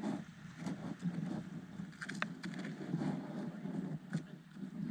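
Beach ambience: a steady low rumble with faint voices and a few light clicks.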